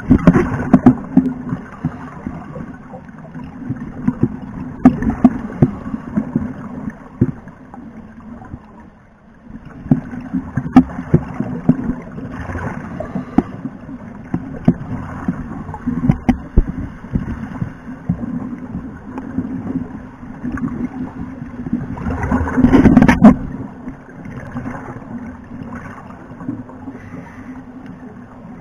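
Underwater sound picked up through a camera housing: a steady low hum with irregular gurgling bursts of bubbles. The loudest burst comes about 23 seconds in.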